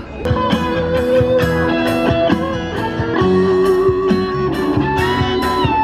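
Background music: an electric guitar-led track with a steady beat.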